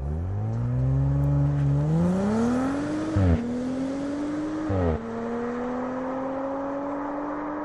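2018 Audi RS4 Avant's 2.9-litre twin-turbo V6 accelerating away through the gears, its exhaust note rising in pitch. It upshifts twice, about three and five seconds in, each shift marked by a short loud burst, then pulls on steadily in the higher gear, a little quieter.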